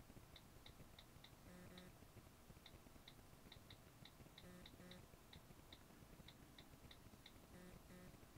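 Faint, irregular clicks of an Apple device's on-screen keyboard as login details are typed, about two to three taps a second, over near silence.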